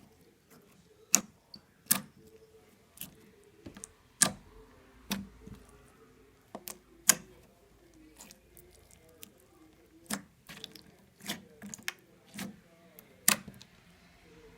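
Slime being handled by hand, making sharp, irregular clicks and pops, roughly one a second.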